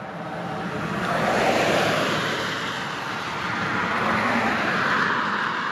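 Road traffic passing: a rush of tyre and engine noise that swells twice, about a second in and again around five seconds in.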